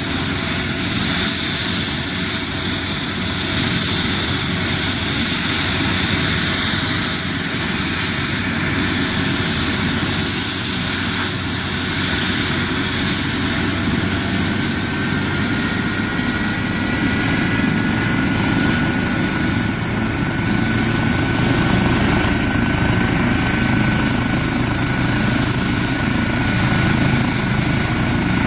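Eurocopter EC135 rescue helicopter running on the ground, its turbines and main rotor turning steadily. About halfway through, a high turbine whine comes in and rises slightly, and the rotor sound grows a little louder toward the end as it runs up for takeoff.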